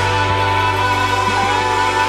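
Worship band music playing an instrumental passage: sustained chords over a steady bass, with a lead line holding a note that bends down briefly.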